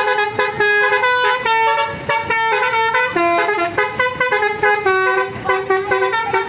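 Basuri telolet horn on a bus playing a fast melody, a quick run of clear horn notes that step up and down in pitch.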